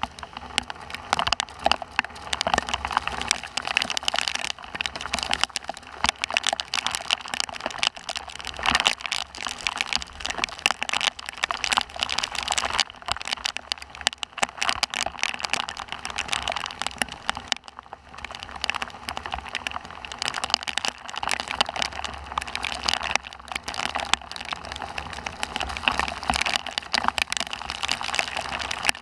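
Heavy rain in a thunderstorm, drops striking a surface close to the microphone in a dense, continuous crackle.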